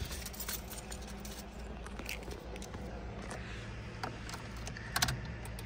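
Faint clicks and rattles of a car key being handled at a Citroen C1's ignition, then a sharper clatter of clicks about five seconds in as the key is turned to switch the ignition on. A steady low hum runs underneath.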